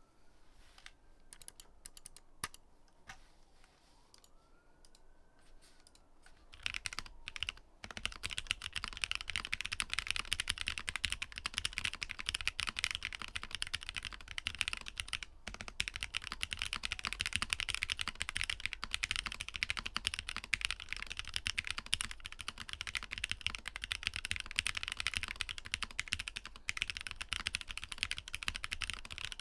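Mechanical keyboard typing: an IV Works AV3 gasket-mounted board with an FR4 plate, fitted with Momoka Frog switches. A few scattered keystrokes come first, then fast, continuous typing from about seven seconds in.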